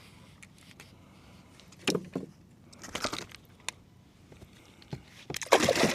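Gear being handled in a kayak while a fish is unhooked: knocks and rattles in a few short bursts, the loudest and longest near the end.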